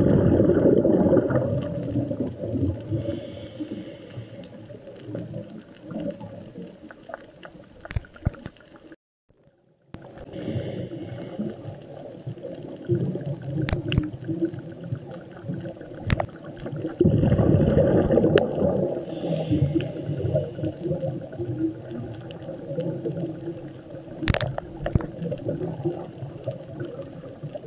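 Underwater sound of a scuba diver's exhaled bubbles gurgling from the regulator, in two loud bursts at the start and again about 17 seconds in. A low rumbling underwater noise runs between them, with a few sharp clicks, and the sound drops out briefly about nine seconds in.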